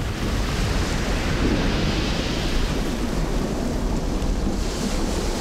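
Steady rush of sea surf and wind as waves surge up a rocky shore. The waves are those of the tsunami set off by the Stromboli landslide.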